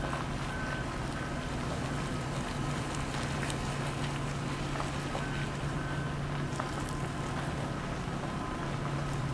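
Heavy-equipment engine running steadily in the background, a constant low hum, with faint short high beeps now and then.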